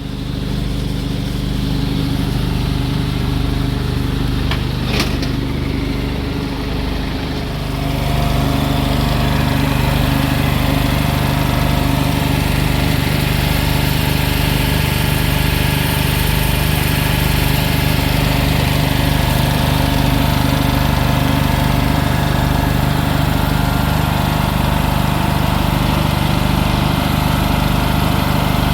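Small engine running steadily at a constant speed, growing louder and brighter about seven or eight seconds in and holding there, with one short click near five seconds.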